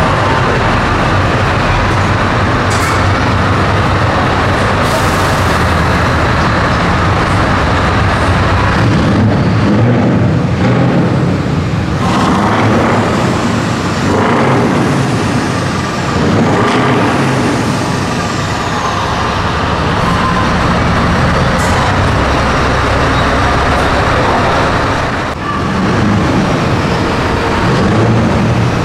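Scania S650's 16-litre V8 on open straight pipes, rumbling loudly at low speed and echoing under a tunnel roof, with further trucks rolling through behind it. A few brief high hisses cut in, about three seconds in, again at five, and near twenty-two seconds.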